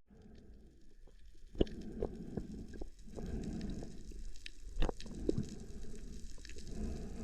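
Underwater ambience as picked up by a camera in its housing: a low, muffled rumble with scattered sharp clicks and cracks, the two loudest about one and a half and five seconds in.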